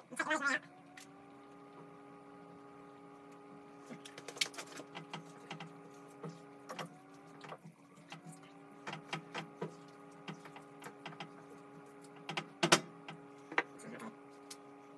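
Clicks and scrapes of a utensil working in a cooking pan, likely stirring the chicken back into the creamy sauce. Over them is a steady mechanical hum that winds up to pitch and holds. It starts again twice, near the middle and near the end.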